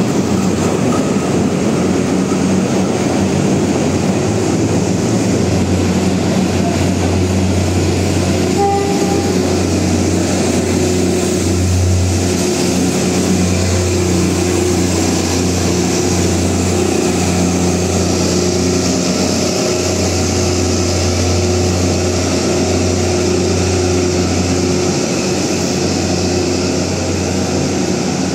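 Philippine National Railways diesel train running: a steady low engine drone with rail and wheel noise, easing slightly near the end.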